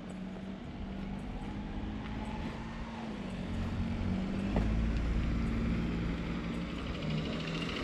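A car driving slowly toward and past at close range, its engine hum and tyre noise growing louder over the first few seconds and staying loud as it comes near.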